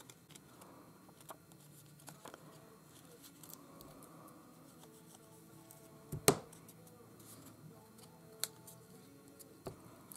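Quiet handling of a paper tag and a wooden-handled rubber stamp on a cutting mat: faint rustles and small ticks, with one sharp knock about six seconds in as the wooden stamp is picked up, and two lighter taps near the end.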